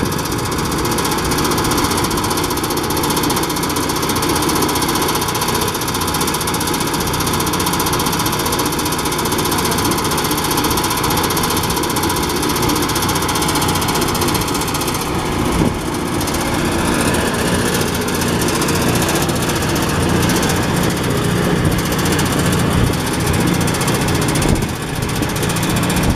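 Power rice thresher running steadily, driven by its Kubota RD 65 single-cylinder diesel engine, while paddy is being threshed. The tone of the machine shifts a little about halfway through.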